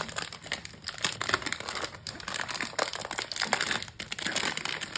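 Plastic packaging crinkling and rustling as it is handled and pulled open by hand, a dense irregular crackle throughout.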